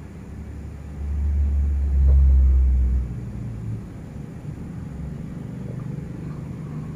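A deep low rumble that swells about a second in, is loudest for roughly two seconds, then drops back to a faint low hum.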